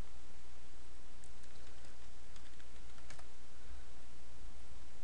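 Computer keyboard keys clicking as a password is typed: a handful of separate keystrokes, mostly in the middle, over a steady low hum and hiss.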